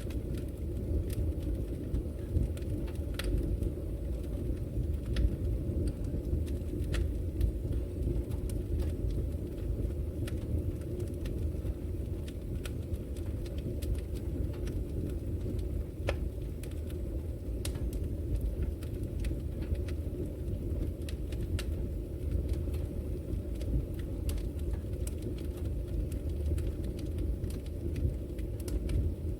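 Wood fire burning in a fireplace: a steady low rumble of the flames with frequent sharp crackles and pops from the burning logs, scattered irregularly throughout.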